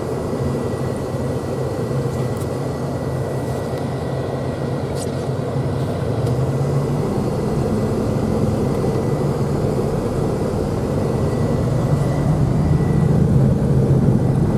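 Vehicle engine running steadily with road noise, heard from inside the cab, with a faint steady high whine over it; the engine sound grows a little louder about halfway through.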